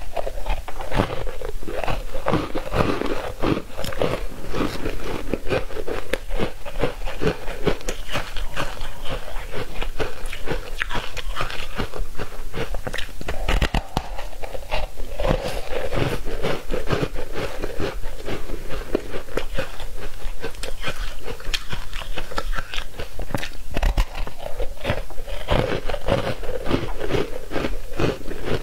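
Biting and chewing of foam ice dusted with green powder: a steady run of many small, rapid crunches.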